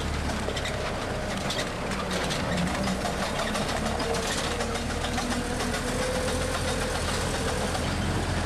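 Engine of the resort's tour tram running steadily as it drives along, heard from on board, with a low hum and constant small rattles.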